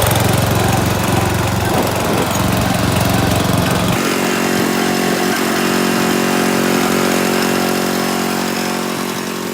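Riding lawn mower engine running steadily as the mower is driven. About four seconds in, the sound turns into an even, steady hum with less low rumble.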